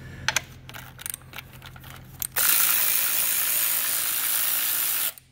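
A few light clicks, then a cordless power ratchet on a socket extension runs steadily for about three seconds, spinning out a bolt on the Detroit DD15 engine, and stops near the end.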